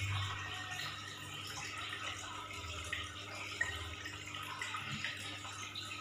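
Aquarium water running and bubbling steadily, with a few small drips and a low steady hum underneath.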